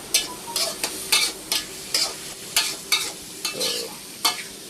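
Boiled banana stem sizzling as it is stir-fried in hot oil, with repeated stirring scrapes against the pan about twice a second.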